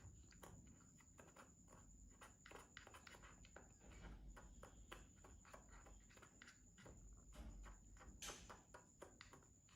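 Faint, irregular clicking and tapping of a small spoon stirring powder into water in a small cup.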